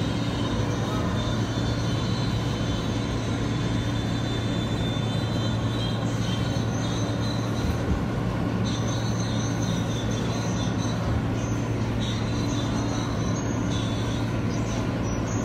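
New York City subway J train running on the elevated line, heard from inside the car: a steady rumble with a low hum. A thin high whine comes in about halfway through.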